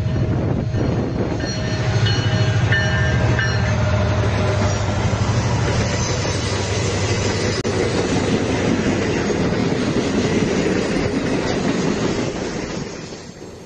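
Model diesel locomotive in Central Vermont livery and its freight cars running past close by on model railroad track: a steady rumbling clatter of wheels and motor that fades away near the end as the train passes.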